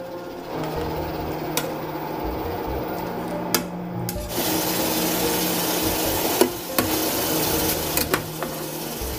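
Stainless steel tongs turning soybean sprouts in a pot of boiling water, with sharp clicks of metal against the pot several times. The bubbling of the boil rises into a louder, steady hiss about four seconds in.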